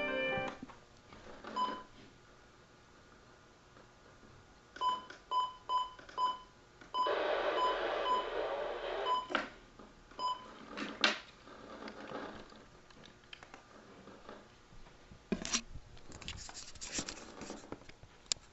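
Short electronic beeps at one pitch: a single beep, then a quick run of four, then about two seconds of hiss with more beeps over it, and a few sharp clicks near the end.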